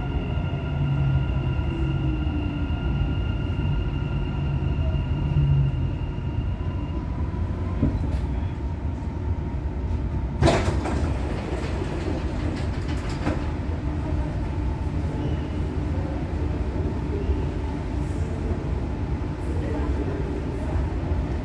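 Dubai Metro train's electric drive whining and falling in pitch as the train slows to a stop about seven seconds in. A sharp clunk about ten seconds in, then a steady hum and rumble as it stands.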